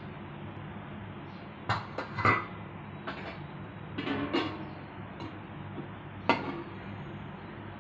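Metal cooking pot and utensils clinking and knocking a few times, loudest about two seconds in, with a sharp click near the end, over a steady low hum.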